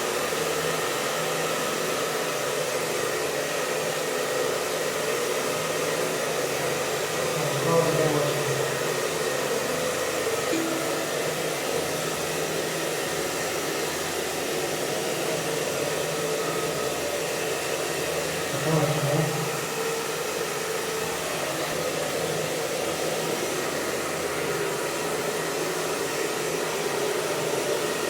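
Hair dryer blowing steadily, drying a cat's wet fur after its bath. Two brief, louder low sounds rise over it, about 8 seconds in and again about 19 seconds in.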